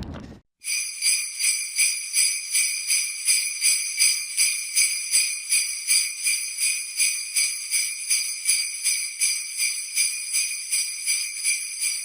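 Jingle bells (sleigh bells) shaken in a steady rhythm, about three shakes a second, with a bright high ringing. They start abruptly after a moment of silence just under a second in.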